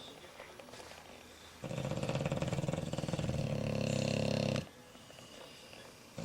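Sleeping bulldog snoring: a quiet gap, then one long rattly snore of about three seconds, and the next snore starting at the very end.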